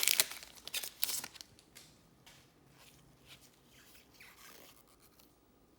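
Trading card pack wrapper torn open and crinkling for about a second and a half, then faint rustling as the cards are slid out and handled.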